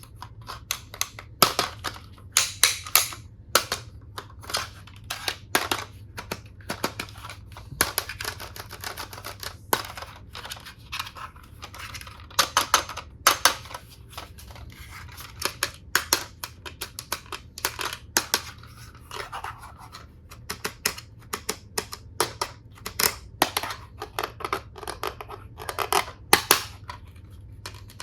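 Hard plastic toy tool pieces and packaging being handled: many irregular sharp clicks, taps and short crinkly scrapes, a few at a time with brief pauses between.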